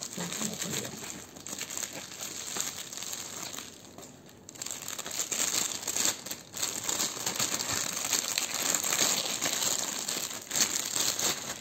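Bubble wrap and a thin plastic bag crinkling and rustling as hands unwrap a camera kit lens, with brief pauses about four and six seconds in.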